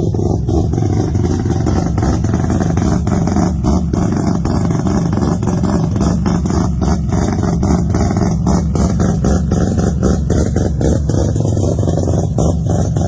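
Three-rotor rotary engine of a Mazda RX-7 running at a steady speed through its exhaust, with irregular crackles throughout.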